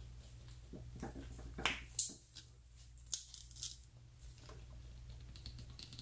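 Faint creaks and small ticks from a carbon fiber tube and glued-in rubber well nut being pulled under load on a wire loop hung from a crane scale's hook, with a few sharper clicks around two and three and a half seconds in.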